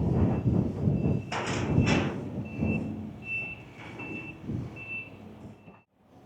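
A vehicle's reversing alarm, a single high beep repeating roughly every 0.7 seconds, over low engine rumble, with a loud clatter a little over a second in.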